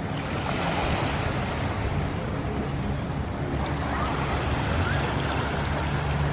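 Lake waves washing on a sandy beach in the wind, with wind noise on the microphone and a steady low hum underneath.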